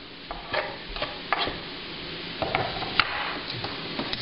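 Fork stirring shredded carrots and minced garlic in a stainless steel mixing bowl, with irregular clicks of metal against the bowl over a soft scraping hiss.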